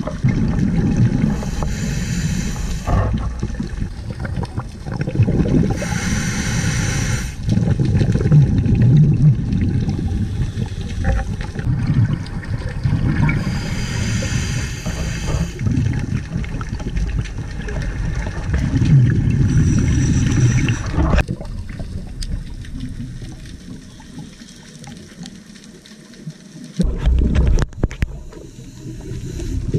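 Scuba diver breathing through a regulator underwater, heard muffled through the camera's housing: a hissing inhale about every six seconds, with low rumbling gurgles of exhaled bubbles between. The breathing goes quieter for a few seconds near the end before another burst of bubbles.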